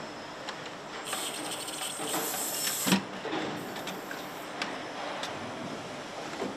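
Pneumatic assembly machinery. A hiss of compressed air lasts about two seconds and cuts off with a clunk about three seconds in, then a shorter hiss and a few light clicks follow, as an automated station lowers a cylinder head onto an engine block.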